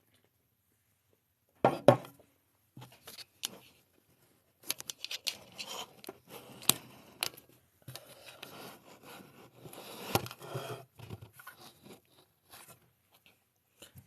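Handling noises: a sharp knock about two seconds in, then a run of clicks, scrapes and rustling.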